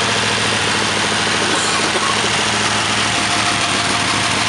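1949 Ford 8BA flathead V8, freshly rebuilt, idling steadily through headers and Harley-Davidson mufflers.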